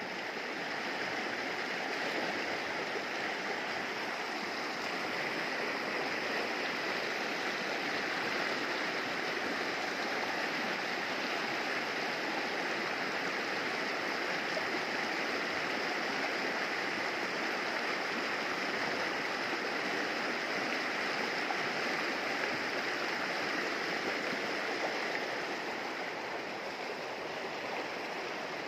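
Shallow mountain river rushing over stones and boulders in white-water rapids: a steady rushing, a little quieter near the end.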